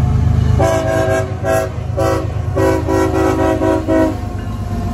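Diesel locomotive air horn sounding four blasts, the last one the longest, over the steady low rumble of the passing locomotive and train.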